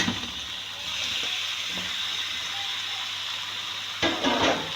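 Mutton pieces sizzling in hot ghee, a steady hiss, with a spoon clattering and scraping in the pan about four seconds in as the meat is stirred.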